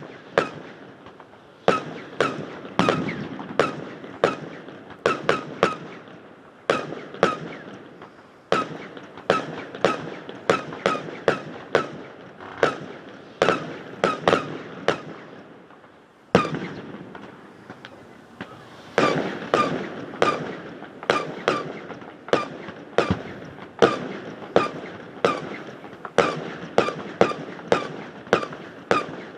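Firework display: a rapid, irregular string of shell bangs, about one or two a second, each followed by a short ringing echo off a metal hangar that gives them an odd metallic twang. The bangs thin out briefly just past the middle, then pick up again.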